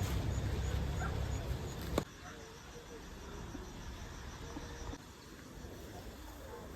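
Garden ambience: a low rumble for about two seconds that cuts off suddenly with a click, then insects chirping in a steady, regular pulse, with a few faint short animal calls in the background.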